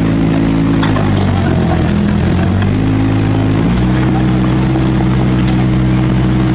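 Kobelco SK50 mini excavator's diesel engine running under hydraulic load as the bucket digs into broken asphalt and soil. The engine note sags for a couple of seconds, then picks up and holds steady from about halfway through as the loaded bucket curls and lifts. A few faint knocks of rubble against the steel bucket.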